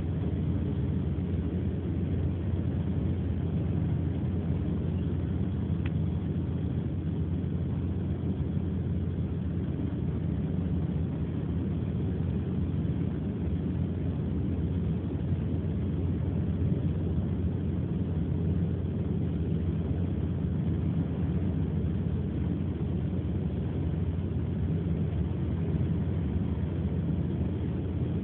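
Steady low rumble of a running car heard from inside the cabin.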